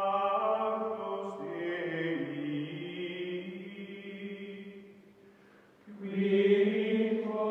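Outro music of chanted voices holding long, sustained notes; the pitch steps down about two seconds in, the sound fades to a lull around five seconds, and a louder held chord comes in about six seconds in.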